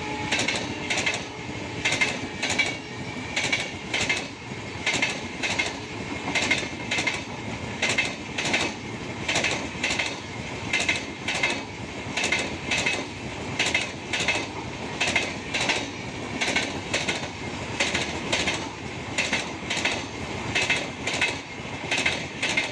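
Passing Indian Railways LHB passenger coaches at speed: a steady rush of wheels on rail with a regular clickety-clack as wheelsets strike the rail joints, the strikes coming close together in pairs and groups.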